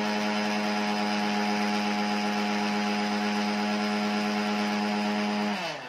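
Electric mixer grinder's motor running at one steady speed with a steady whine, blending soy milk, cocoa and chocolate syrup in its plastic jar. Near the end it is switched off and the whine falls in pitch as the motor spins down.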